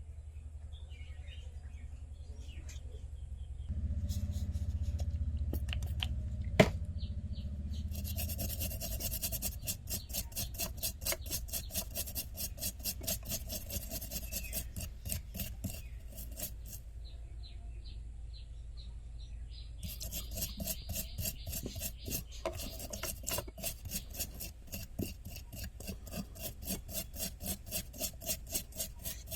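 Quick, even back-and-forth scraping strokes, about four a second, in two long runs, as a tool is scraped across a chip or circuit board to clean it for reballing, over a steady low hum; a single sharp click about seven seconds in.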